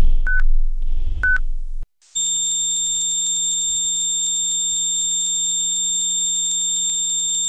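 A cardiac monitor beeps about once a second over a heavy low rumble. About two seconds in, the beeping stops and a continuous steady alarm tone sounds: the monitor alarm for ventricular fibrillation, the heart going into cardiac arrest.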